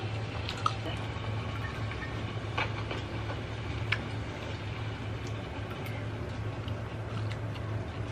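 Chopsticks and a spoon clicking now and then against a plastic takeout bowl during eating, over a steady low hum.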